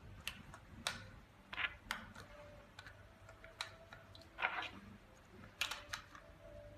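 Small clicks and taps of batteries being fitted one by one into the plastic battery compartment of a chrome touchless soap dispenser, with a few short scraping rustles as the unit is handled.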